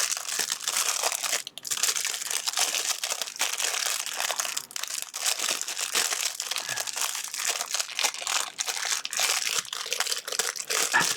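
Packaging crinkling and crackling steadily as it is handled and opened.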